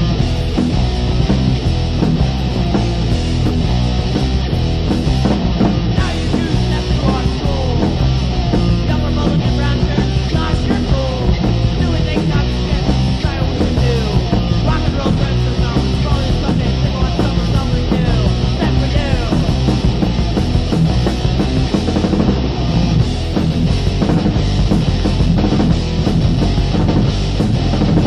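Hardcore punk band's 1990 demo recording, playing loud and steady without a break.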